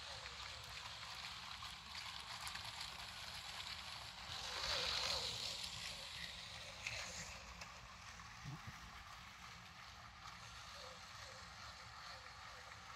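Motorised LEGO train pushing the Orient Express set along plastic LEGO track: a steady whirr of the motor and light rattle of wheels on the rails. It grows louder to about five seconds in and then fades as the train moves away around the loop.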